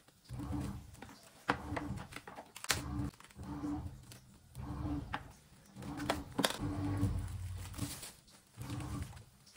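Plastic cling wrap pulled from its roll and crinkled around a cut cabbage wedge, with sharp crackles and taps. A low rhythmic hum that comes and goes about every half second runs underneath.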